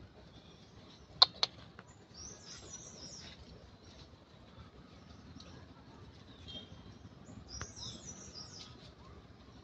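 Birds chirping in two spells of high, falling calls, with two sharp clicks about a second in.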